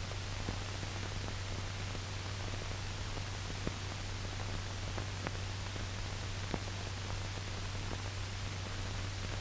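Steady hiss and low hum of an old optical film soundtrack, with a few faint scattered clicks and crackles.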